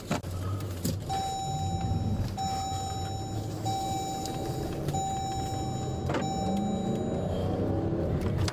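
Vehicle engine running and revving up and down during a pursuit, with a repeating electronic beep at one pitch, about five beeps each a second long, and a few sharp clicks.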